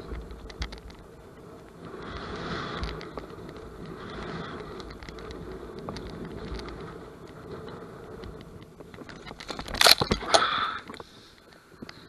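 Scooter riding over a sandy trail with rattling and scraping, then a loud crash with two heavy clattering impacts a little under ten seconds in as the scooter goes down in deep sand.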